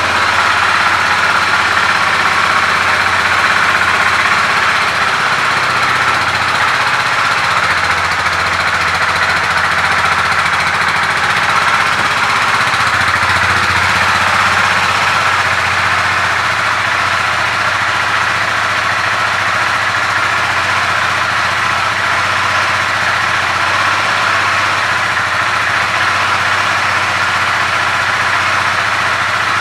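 2018 KTM RC 390's single-cylinder four-stroke engine idling steadily.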